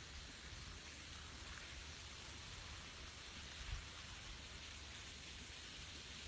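Faint, steady hiss of rain falling.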